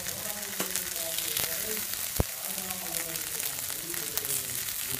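Kuzhi paniyaram sizzling in ghee in the wells of a paniyaram pan while a wooden spatula turns them, with small scrapes and one sharp tap about two seconds in.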